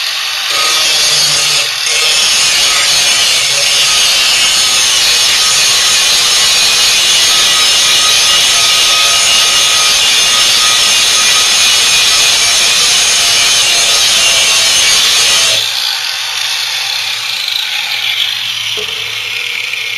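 Angle grinder with a grinding disc sharpening a steel lawnmower blade clamped in a vise: a loud, steady grinding hiss of disc on metal. It stops suddenly about three-quarters of the way through, leaving a quieter hum.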